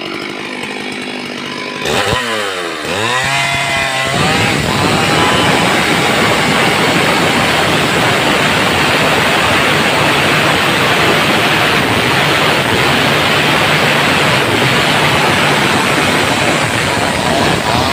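Stihl MS 382 two-stroke chainsaw idling, then revving up with a rising whine about two seconds in and running at full throttle, cutting into a wooden beam, for the rest of the time.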